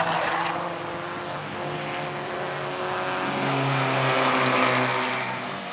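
Carbureted classic race car engine running hard on track, its note easing through a corner and then rising and growing louder from about three seconds in as the car accelerates.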